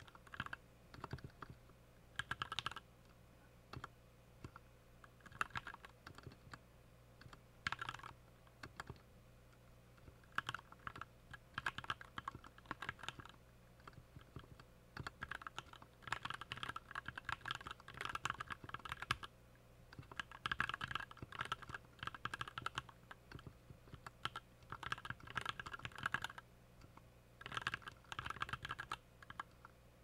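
Typing on a Skyloong GK61 Pro mechanical keyboard: uneven runs of quick keystroke clicks with short pauses between them.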